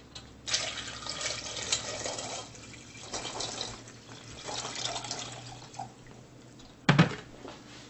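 White vinegar poured from a plastic gallon jug into a stainless steel saucepan of quail eggs, the liquid splashing and gurgling for about five seconds. A single sharp knock comes near the end.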